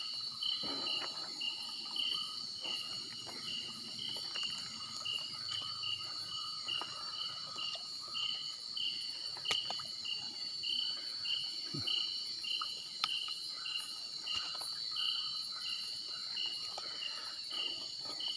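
Night insect chorus: a cricket-like chirp repeating about twice a second over a steady high-pitched insect drone, with a few faint clicks.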